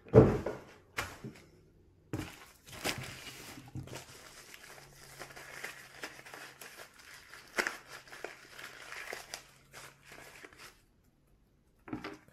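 Plastic wrapping crinkling and rustling as small parts are unwrapped by hand, with a dull thump about a quarter of a second in, the loudest sound. A short rustle comes near the end.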